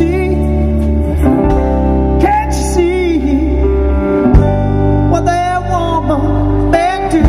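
Live rock band playing a song on electric guitars, bass and drums, with singing and a wavering, bending melody line over sustained chords.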